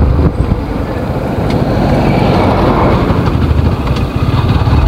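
Motorcycle riding along a road, its engine running under steady wind and road noise on the rider's camera microphone, as it overtakes a bus.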